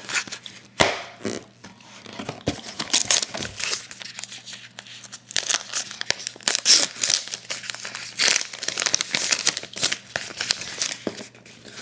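Trading card pack wrapper being torn open and crinkled in the hands: an irregular crackling rustle with many sharp little crackles.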